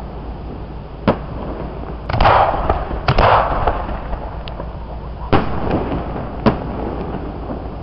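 Aerial firework shells bursting: four sharp bangs spread through, with a short rushing noise after a couple of them.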